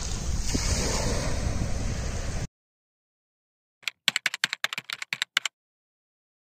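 Small waves washing onto a beach, with wind on the microphone, cut off suddenly about two and a half seconds in. After a short silence comes a quick run of about a dozen typewriter-key clicks, a typing sound effect that types out an on-screen caption.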